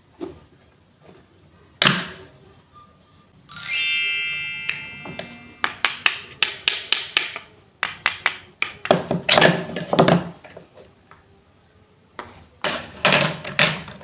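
Toy wooden play-food pieces and knife being handled: quick clusters of sharp wooden clicks and knocks, with one bright ringing clink about three and a half seconds in.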